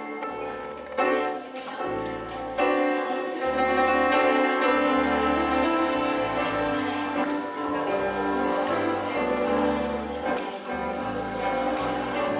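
Instrumental music with sustained chords over a low bass line that changes note every second or two.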